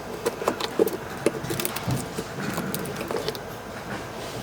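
Irregular light clicks, taps and rattles of a laptop's plastic parts being handled, as the keyboard of a Panasonic Toughbook CF-30 is set back in place.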